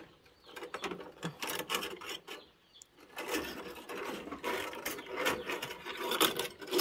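Scraping and rustling of stored wire and rods being rummaged through. It starts about three seconds in, after a quiet start, as a steady run of short scrapes and rubs.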